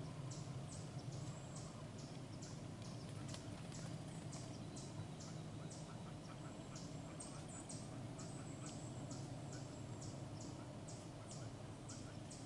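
Quiet outdoor ambience: a steady series of short, high-pitched chirps, about two or three a second, over a low steady hum.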